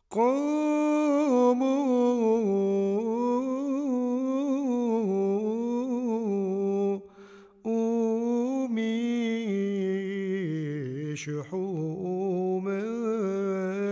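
A single voice singing long wordless notes that slide slowly up and down in pitch. It breaks off briefly about seven seconds in, and sinks lower and wavers near the end.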